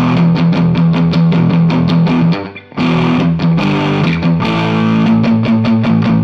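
Godin Freeway electric guitar with a distorted tone playing a fast palm-muted riff of rapid picked chugs on the low strings, pausing briefly about two and a half seconds in before carrying on.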